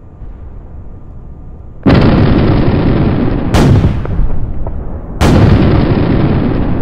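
Artillery shells exploding nearby: a sudden heavy blast about two seconds in that rolls on into a long rumble, a sharp crack about three and a half seconds in, and a second heavy blast just after five seconds.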